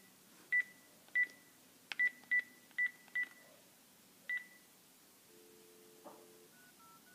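Panasonic cordless phone handset beeping once for each key pressed as a seven-digit number is keyed in: short high beeps, unevenly spaced. Near the end a faint low steady tone, then a quick run of faint stepped tones as the number is dialled out.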